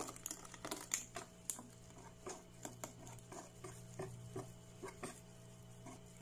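Wire balloon whisk stirring a milky soursop ice-cream base in a stainless steel bowl, its wires ticking faintly and irregularly against the metal, a few ticks a second.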